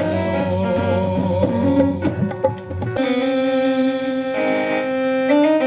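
Recorded qawwali music with tabla. About three seconds in it cuts abruptly from one song's ending into the next song's instrumental opening of long held notes.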